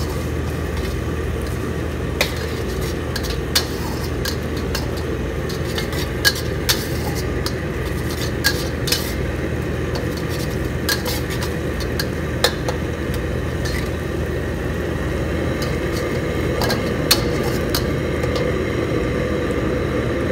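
Steel ladle stirring and scraping onions and spices frying in oil in a steel wok, with sharp clinks of metal on metal about a dozen times, over a steady low hum.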